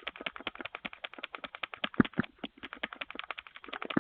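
Rapid, unbroken knocking on a front door, about nine or ten knocks a second, with a couple of harder knocks about halfway, picked up by a doorbell camera's microphone.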